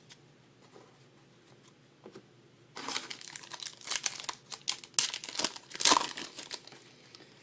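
Trading-card pack wrapper being torn open and crinkled. The crinkling starts about three seconds in and lasts about four seconds.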